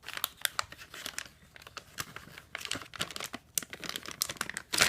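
Plastic packaging of fishing baits crinkling and crackling as it is handled, in many quick irregular crackles, with the loudest crackle near the end.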